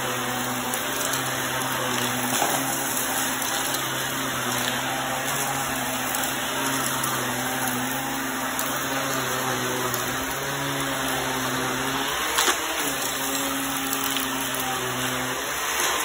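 Upright bagless vacuum cleaner running steadily as it sucks fine dirt off a rug, with a few sharp ticks of grit going up into the machine. Its low hum dips briefly about twelve seconds in.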